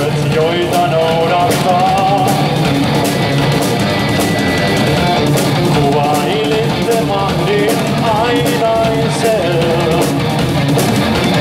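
Rock band playing live: distorted electric guitars, bass guitar and a drum kit with steady cymbal hits, a melodic line bending over the top.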